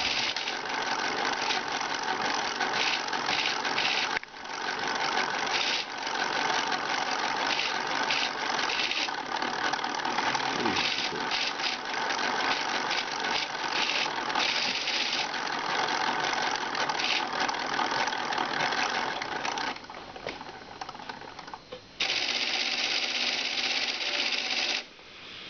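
LEGO painting machine's electric motors and plastic gear trains whirring steadily. It breaks off briefly about four seconds in, runs quieter for a couple of seconds near the end, then comes back and stops shortly before the end.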